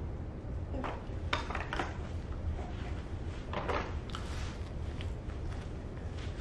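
Scattered light clicks, knocks and rustles of a baby handling plastic toys and moving about on a foam play mat, over a steady low hum.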